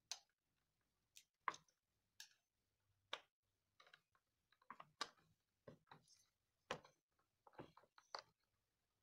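Faint, irregular clicks and light taps of a screwdriver tightening the screw that clamps the IGBT to the induction cooktop board's finned heat sink, with the board handled between turns.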